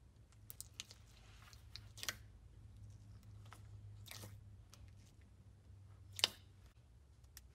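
Fingers poking and pressing into clear slime mixed with polymer-clay sprinkles: scattered faint sticky clicks and pops, the loudest about six seconds in.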